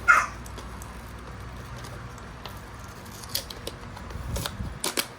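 A product box being opened by hand. There is a short, loud rasp of packaging tearing right at the start, then scattered clicks and rustles of cardboard and plastic handled near the end.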